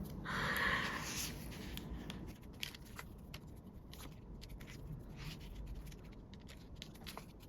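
Faint rustling and light clicks of photocards and their plastic sleeves being handled, with a short stretch of rustling in the first second followed by scattered soft ticks.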